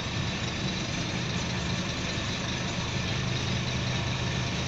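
Scania K230UB bus's five-cylinder diesel engine running steadily at a constant pitch, heard from inside the passenger saloon.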